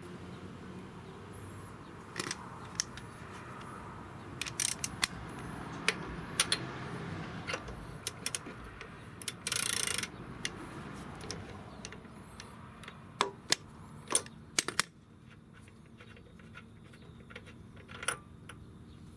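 Light metallic clicks and clinks of tools and small parts being handled, scattered irregularly, with one short hiss about ten seconds in.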